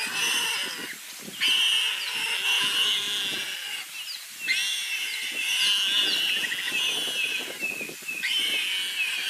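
Warthog squealing in distress while a leopard holds it: shrill, harsh squeals in long bouts, with brief breaks about a second in, about four seconds in and near the end.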